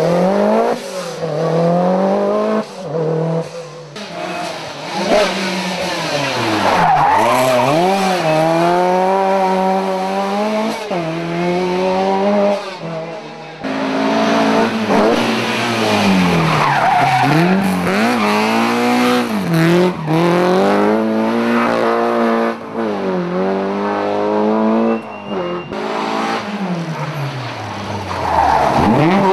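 Several rally cars passing one after another at full attack, their engines revving hard, dropping and climbing again through gear changes and corners, with tyres squealing as they slide.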